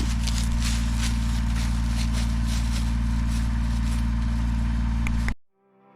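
An engine running steadily at an even pitch, then cut off suddenly about five seconds in.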